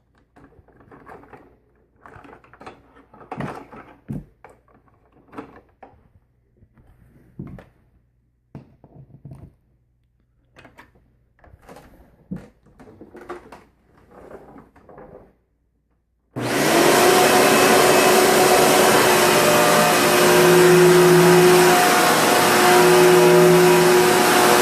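Intermittent knocks and rustling of handling, then about two-thirds of the way through a Eureka The Boss Plus upright vacuum cleaner switches on suddenly and runs loudly and steadily, with a lower hum that swells and fades a few times.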